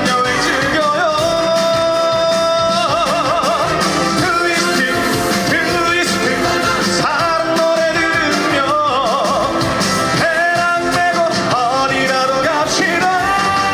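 Male trot singer singing live over an upbeat dance-band backing, holding long notes with a wide, wavering vibrato.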